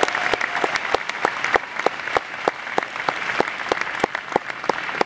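Audience applauding, with many sharp individual claps standing out; the applause thins out near the end.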